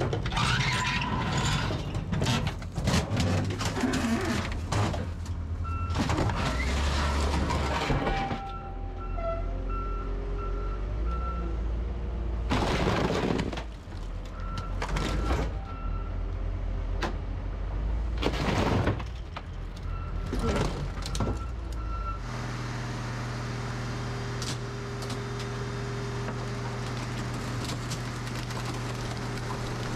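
Heavy equipment engine working, with a backup alarm beeping in three runs of evenly spaced beeps and several loud stretches of scraping and clattering. The engine settles to a steady run about two-thirds of the way in.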